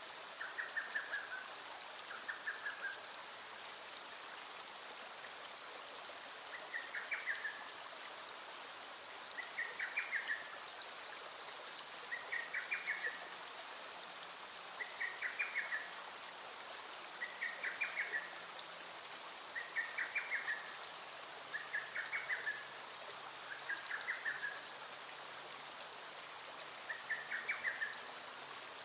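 Small stream flowing steadily, with a short rapid trilled call repeated about every two to three seconds above it.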